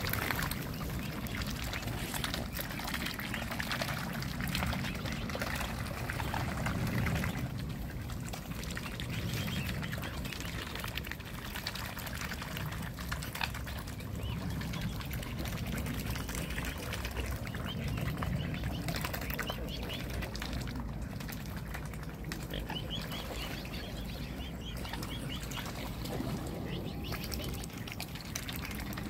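Swans and cygnets feeding in shallow water: continuous dabbling and splashing of bills at the surface, full of small wet clicks, with water sloshing.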